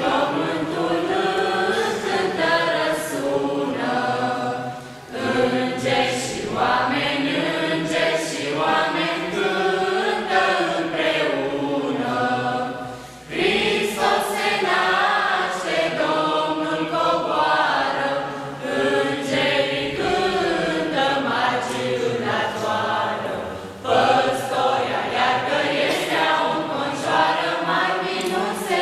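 A small group of young carollers singing a Romanian Christmas carol (colindă) unaccompanied, in phrases broken by short breaths about 5, 13 and 24 seconds in.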